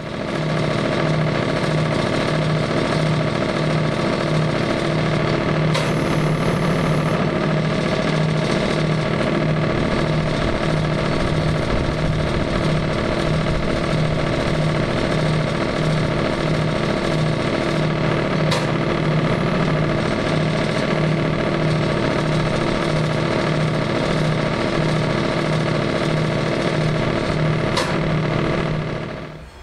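Wood chipper's Kohler 40 hp petrol engine running at a steady speed with the chipper turning over and nothing being fed in: a constant engine hum with a slow, regular pulse. There are a few short clicks along the way.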